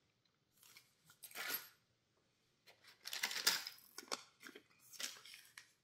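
Plastic tackle packaging crinkling and rustling as it is handled, in several short bursts, the longest and loudest about three seconds in.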